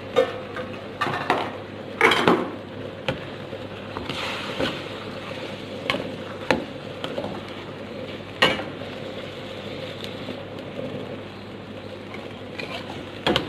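A cooking utensil scraping and knocking against a metal wok as raw rice is stirred into chicken curry, with irregular clanks, the loudest about two seconds in, over a steady low background.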